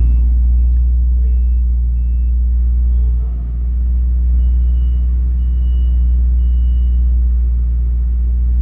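A steady low drone of an idling engine, dipping briefly about three and a half seconds in.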